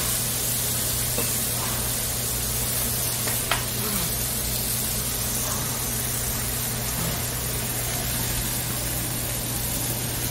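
Beef sirloin sizzling on a hot Korean barbecue grill plate: a steady hiss like rain. One small click about three and a half seconds in.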